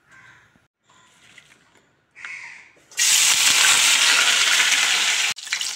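Cut spine gourd (kakoda) pieces going into hot mustard oil in a kadhai, setting off a sudden loud sizzle about three seconds in after a quiet start. The sizzle holds, with a brief break just before the end.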